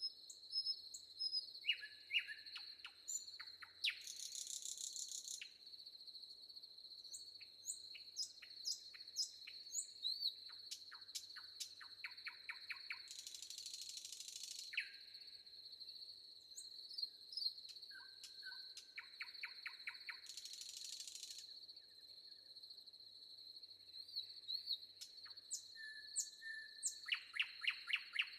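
Several songbirds chirping and trilling in a forest over a steady high insect drone. A harsh, buzzy burst lasting about a second and a half recurs about every seven or eight seconds.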